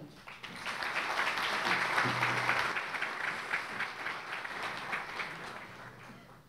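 Audience applauding, swelling within the first second and then slowly fading out.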